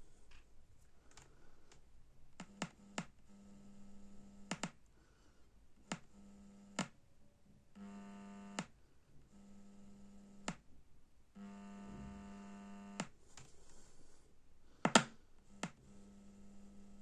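BD424 amplifier's speaker buzzing with a low hum that switches on and off about six times, each burst lasting one to two seconds. Sharp clicks mark where the hum starts and stops, the loudest a pair of clicks about fifteen seconds in.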